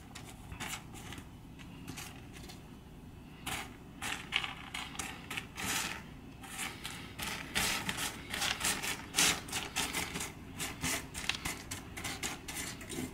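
Dry pinto beans clicking and scraping as fingers push and sort them across a textured mat, picking out small rocks. An irregular run of short clicks and rustles, sparse at first and busier from about three and a half seconds in.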